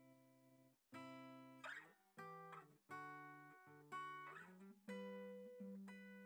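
Quiet background music on acoustic guitar: strummed chords, a new one about every second, each ringing out and fading.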